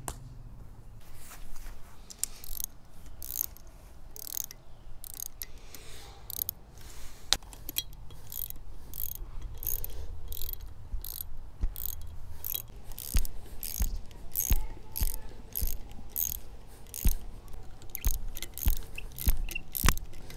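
Ratcheting hand tool being worked in repeated short strokes, a run of clicks with each swing, getting louder and more frequent in the second half, with occasional low knocks.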